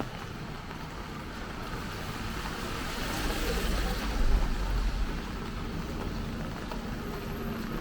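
Steady hiss of light rain and wet city street noise, swelling in the middle into a louder rush with a deep rumble for about two seconds before settling back.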